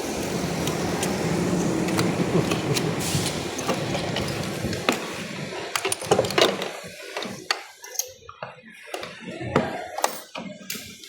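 Glued plastic housing of a Starlink power supply being forced open: a steady grinding, scraping noise for about six seconds, then a series of sharp cracks and snaps as the plastic gives way.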